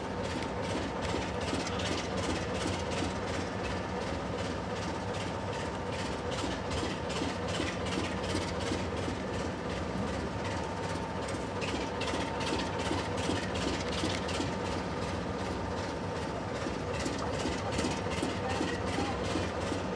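Heritage diesel locomotive running under a slow-moving train, a steady engine drone heard from an open coach window, with a fast regular ticking over it.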